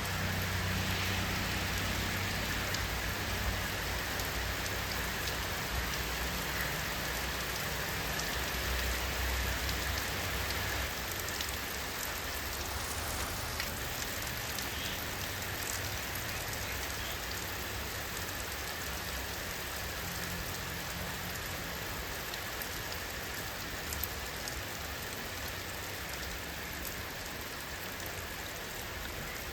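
Steady rain falling, an even hiss with scattered small drop ticks. A low rumble runs under it for the first ten seconds or so, then fades.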